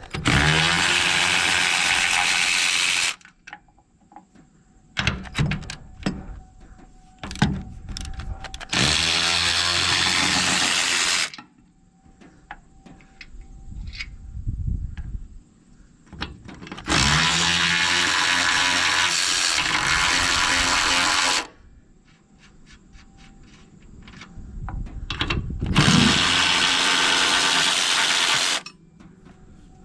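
A power drill runs in four bursts of about three to four seconds each, every one winding up with a rising whine, with small clinks in the gaps between. This is plausibly the four bolts of the hydraulic tank's breather cover being run out.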